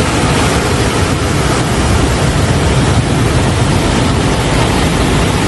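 Floodwater rushing in an overflowing river, a loud, steady roar.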